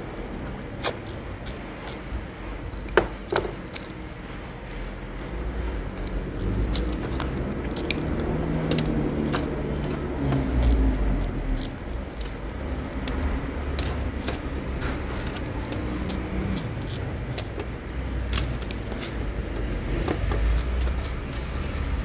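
Close-up mouth sounds of a man eating rice by hand and chewing, with scattered smacking clicks.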